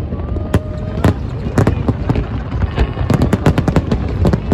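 Aerial fireworks exploding in quick succession: sharp bangs and crackles over a continuous low rumble. The bangs come thickest about three seconds in.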